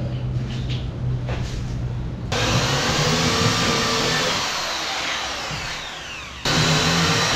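Power drill driving screws down through a plywood panel, the motor's whine sliding down in pitch as it runs. It starts abruptly about two seconds in and cuts back in sharply near the end; before it there is only a low steady hum and a few light knocks.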